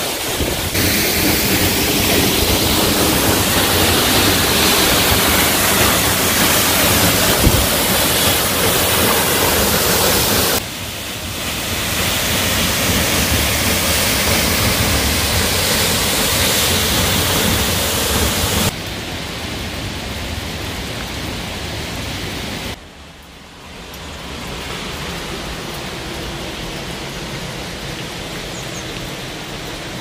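Jofu Falls waterfall: the steady rush of water falling into its plunge pool, heard close up. The level steps down abruptly a few times, and the sound is quieter over the last part.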